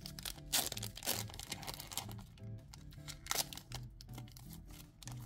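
A foil Pokémon booster-pack wrapper being torn open and crinkled, with the sharpest rips about half a second and a second in and another near the middle, over background music with a steady beat.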